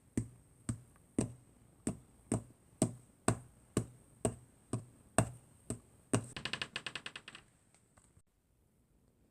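Sharp taps or knocks, evenly spaced about two a second, then, about six seconds in, a quick rattling run of fast clicks that dies away within a second or so.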